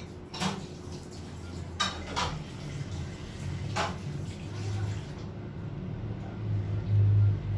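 A few short, sharp clicks in the first four seconds over low rumbling and bumping of handling and movement, with a couple of heavier low thuds later.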